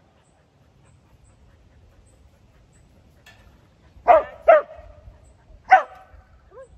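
A dog barking three times: two quick barks about four seconds in, then a third just over a second later.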